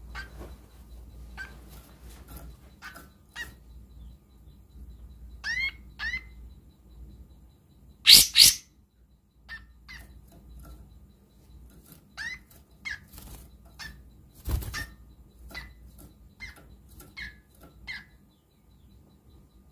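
Caged kapas tembak songbird giving scattered short, sharp chirps, the rough clipped 'besetan' calls, some sweeping quickly upward. A much louder harsh double call comes a little after eight seconds in, and there is a dull thump about halfway through the rest.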